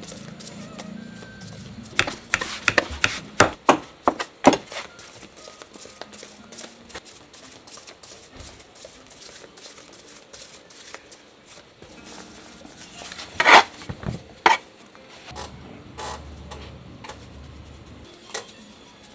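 Hands working pieces of bread dough on a floured board, with scattered soft clicks and two clusters of sharp slaps and knocks, one about two seconds in and another around thirteen seconds in.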